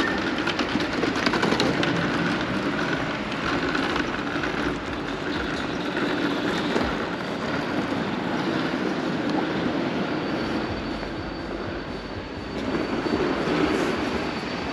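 Steady mechanical rumble with a faint high whine through the second half; it dips briefly near the end, then swells again.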